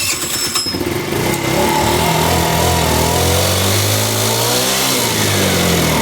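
GY6 single-cylinder four-stroke scooter engine, just started, running with its speed wavering up and down as the throttle is worked. It is kept alive on the throttle because it won't idle on its own: the pilot jet is clogged.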